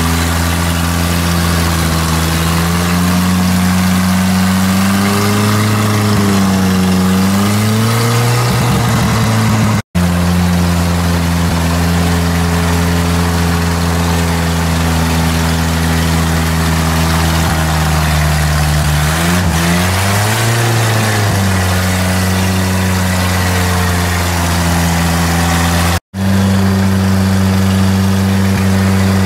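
GAZ-69 off-roader's engine pulling through deep mud, its note rising and falling as the throttle is worked. The sound breaks off abruptly twice, about a third of the way in and near the end.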